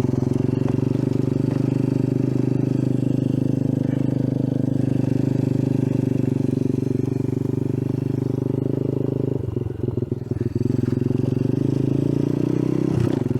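Icebear Champion 125cc mini bike's four-stroke single-cylinder engine running at a steady low speed while ridden. It dips briefly about ten seconds in, then picks up again.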